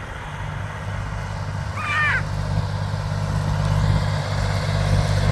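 International Harvester 244 compact tractor's three-cylinder diesel engine running steadily under load as it pulls a disk harrow, growing louder as it approaches. A brief high chirp about two seconds in.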